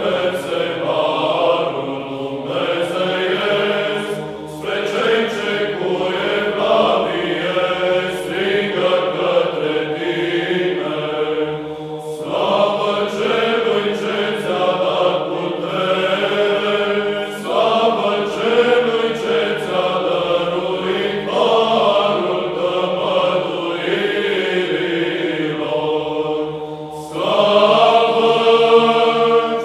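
Orthodox church chant: voices singing a slow, melismatic melody over a steady held low drone note. It grows louder near the end.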